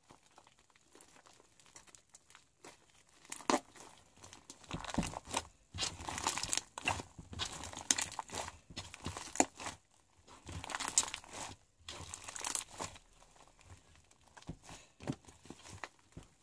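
Fluffy slime and balloon slime being kneaded together by hand: irregular squelching crackles and sharp clicks, busiest in the middle and thinning out near the end.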